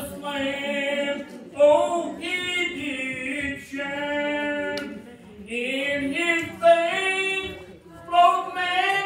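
Church congregation singing a hymn a cappella, men's and women's voices together in long held notes with short breaths between phrases.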